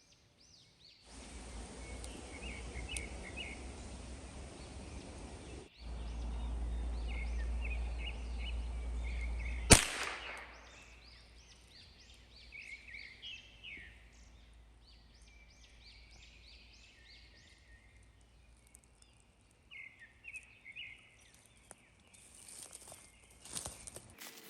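Small birds chirping repeatedly, with wind rumbling on the microphone for the first ten seconds. A single sharp crack about ten seconds in is a shot from a Ruger 10/22 .22 rifle.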